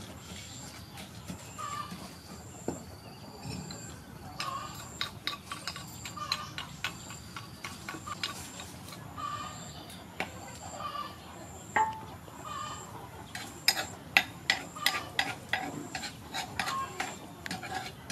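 Wooden pestle knocking and scraping in a wooden mortar as a paste is pounded and mixed, a run of quick knocks bunching up around the middle, with a metal spoon clinking against the mortar near the end. Birds chirp faintly throughout.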